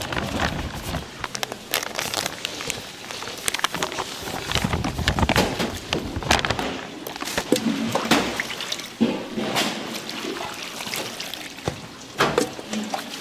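Liquid sloshing and pouring, with frequent short clicks and knocks.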